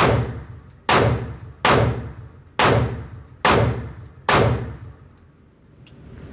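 Palmetto State Armory Dagger 9mm pistol fired six times at a steady pace, a little under a second apart, each shot followed by a long echoing tail in the indoor range. A quieter steady noise follows near the end.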